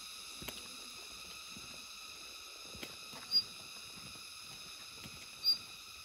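Two short, high chirps from a small animal, about two seconds apart, over a steady high-pitched background hum.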